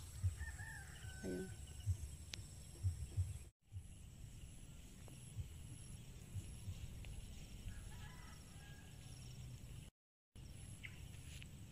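Low wind rumble on the microphone with scattered soft thumps, and faint distant bird calls twice. The sound drops out completely for a moment twice.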